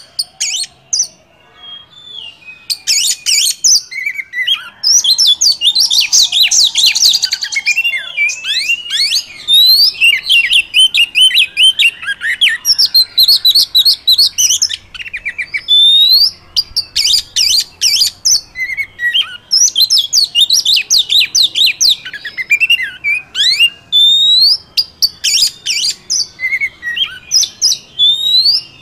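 Oriental magpie-robin singing: a fast, varied string of clear whistles, rising sweeps and chattering notes in dense phrases with short breaks. Only a few scattered notes come in the first couple of seconds.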